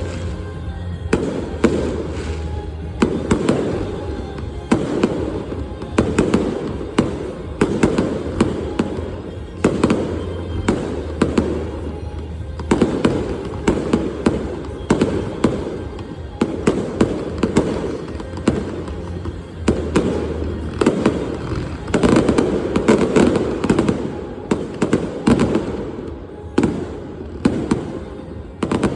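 Aerial fireworks going off in a dense, continuous barrage, several sharp bangs a second overlapping with crackle.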